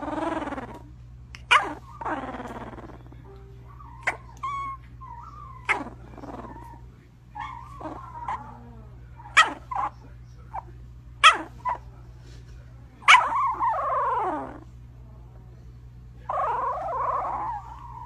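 Sleeping puppy whimpering, yipping and growling softly in its sleep: short high yips every second or two, with a longer whine falling in pitch about two-thirds of the way through and another wavering whine near the end.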